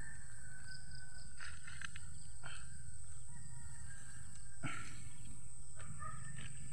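Outdoor ambience: a steady high-pitched insect drone over a low, steady rumble on the microphone, with a few sharp snaps and leaf rustles as green chilies are picked by hand.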